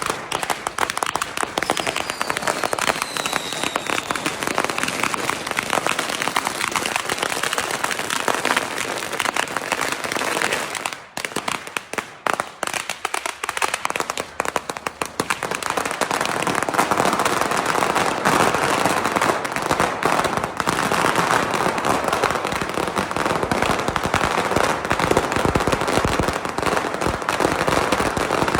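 Fireworks crackling and popping in a dense, rapid stream of cracks, with a faint falling whistle about two seconds in. The crackling thins briefly about eleven seconds in, then comes back heavier from about sixteen seconds on.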